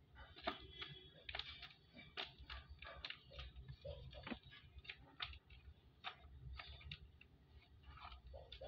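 Tape-covered paper squishies being handled and set down in a cardboard box: faint, irregular crinkles and soft clicks, several a second.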